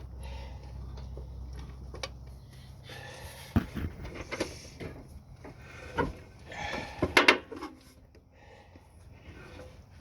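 Irregular knocks and clattering of objects being handled, several sharp ones near the middle and the loudest about seven seconds in, over a low steady hum that stops after about two seconds.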